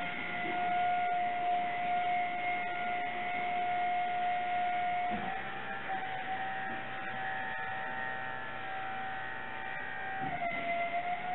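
Electro-hydraulic trailer mover (Hydromover) running: a steady whine from its pump motor as it drives and steers the tandem-axle horse trailer. The pitch shifts slightly about five seconds in and again about ten seconds in, as the load changes.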